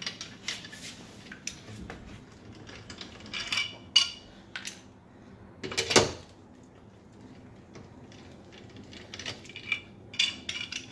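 Hand tools clicking and clinking against metal as the rear ride-height adjuster bolt is turned counterclockwise to lower the car. Irregular light clicks run throughout, with two sharper metallic knocks about four and six seconds in.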